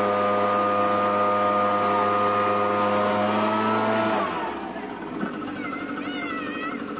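Gas backpack leaf blower's engine running steadily at full throttle, then slowing with a falling pitch about four seconds in as the throttle is let off. A brief high-pitched voice cries out near the end.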